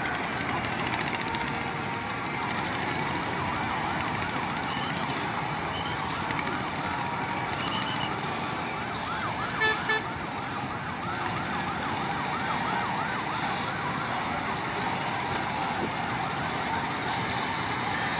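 Steady din of a large outdoor crowd. Through the middle runs a siren-like wail that rises and falls several times a second. About ten seconds in come two short, sharp beeps close together.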